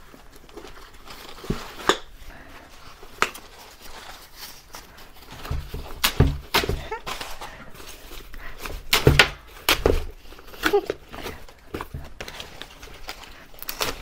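Handling noises of unwrapping a new handbag: scattered clicks and rustles as the protective wrapping is picked off its handle, with a few dull thumps against the table around the middle.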